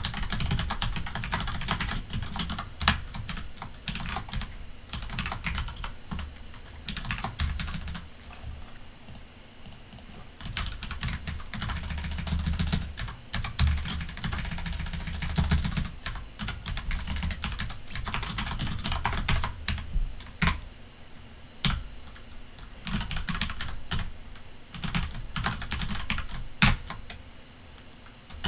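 Typing on a computer keyboard: quick, irregular keystrokes coming in runs with short pauses between them.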